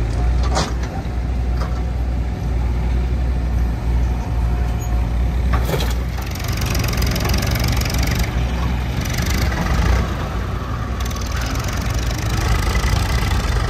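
Diesel engines of a JCB 3DX backhoe loader and farm tractors running steadily with a low rumble, broken by a couple of brief knocks from the working machinery.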